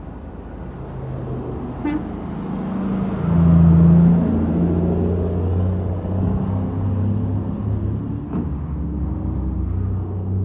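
Heavy truck's engine running and growing louder, with a low steady horn blast of about a second, three seconds in, as the loudest moment. The engine drone carries on steadily afterwards.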